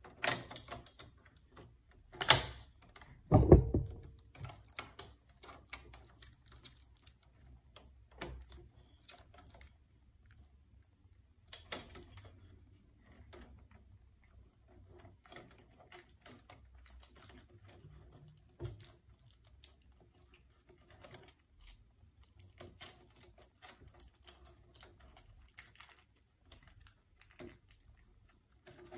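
Irregular small plastic clicks, taps and rattles of laptop case parts and cables being handled and fitted during reassembly, with one louder knock about three and a half seconds in.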